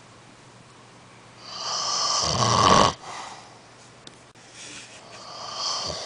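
An elderly man snoring: one loud snore starts about a second and a half in, grows louder and cuts off abruptly near the three-second mark, and a second, quieter snore follows near the end.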